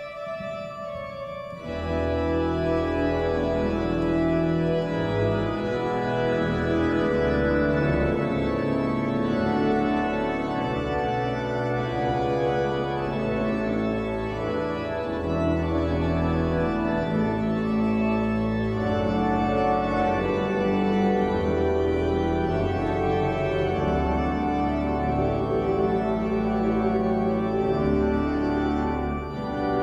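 Church organ playing slow, sustained chords over a moving bass line, swelling fuller about two seconds in.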